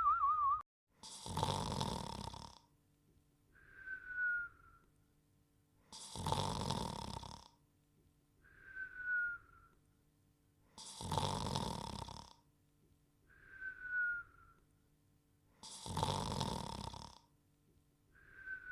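Cartoon sleep snoring: a rough snore on the breath in followed by a short, falling whistle on the breath out, repeating in a steady cycle about every five seconds, four snores in all. A longer wavering whistle trails off just at the start.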